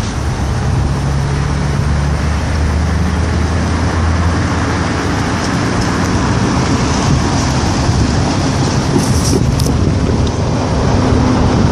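Hi-rail Chevrolet pickup work truck running steadily, with a low engine hum, as it rolls slowly along the rails on its guide wheels.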